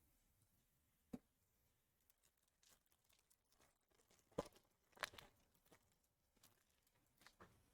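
Near silence with a few faint clicks and rustles from trading cards and packs being handled: one about a second in, a small cluster around four to five seconds in, and a couple more near the end.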